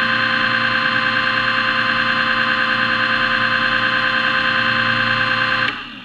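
Underwater scooter (diver propulsion vehicle) motor and propeller running at a steady high-pitched whine, heard underwater, with a slight regular pulse in level. It switches off near the end and fades away.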